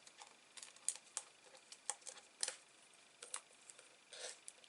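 Light, scattered ticks and clicks with a brief rustle a little past four seconds, from hands picking foam adhesive dimensionals off their backing sheet.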